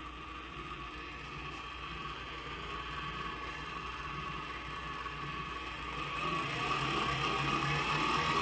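Weber Key coffee grinder's motor running, its pitch and loudness rising as the speed is turned up from its lowest setting, most clearly in the last couple of seconds.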